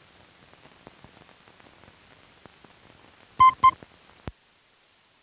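Scattered clicks and crackle from a worn optical film soundtrack running out over blank leader, then two short loud beeps a quarter-second apart, followed by a sharp click, after which only a faint steady hiss remains.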